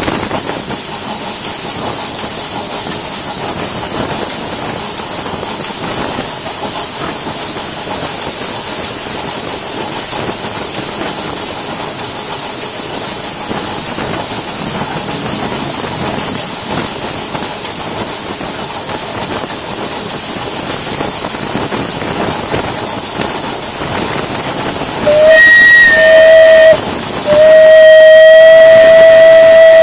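Crown two-foot-gauge steam locomotive running with a steady hiss. About 25 seconds in, its steam whistle blows a short blast and then a long one, sounding for the grade crossing just ahead.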